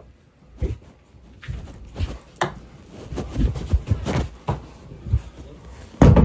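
A run of irregular knocks and thumps that come more often and grow louder, ending in a heavy bang near the end.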